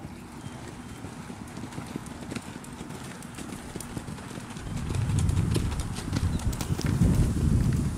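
Hoofbeats of horses on sand arena footing, with a low rumble that comes in and grows louder about five seconds in.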